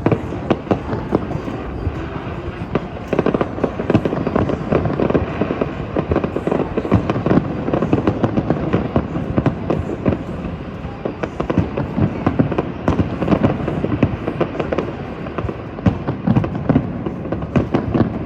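Fireworks show: a dense, continuous barrage of bangs and crackles, many shots a second, with heavier clusters of booms coming and going.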